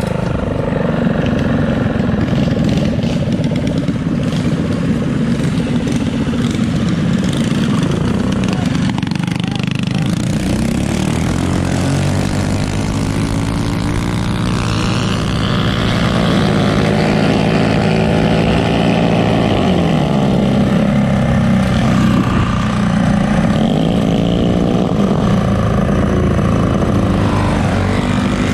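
Mini bike engine running hard, heard close up from the bike itself, its pitch rising and falling several times as the rider opens and closes the throttle, with wind noise over the microphone.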